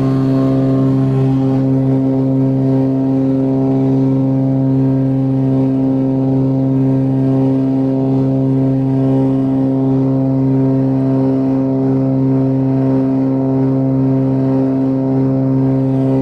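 Cessna 402's twin piston engines and propellers droning steadily at climb power, heard from inside the cabin just after takeoff, with a strong low hum and a steady stack of engine tones above it.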